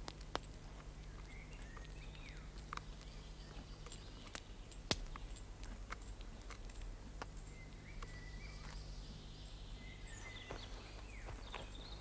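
Faint woodland ambience: scattered short bird chirps and a few falling whistles, with several sharp clicks (the loudest about five seconds in) over a low steady hum.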